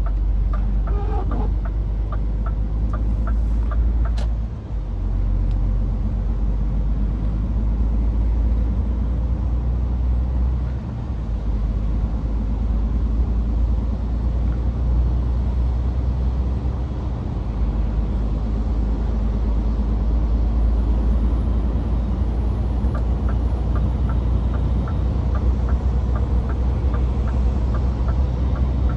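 Scania S500 truck's 13-litre straight-six diesel running steadily on the road, a strong low drone with road noise over it. A regular light ticking is heard at the start and again near the end, with a single sharp click about four seconds in.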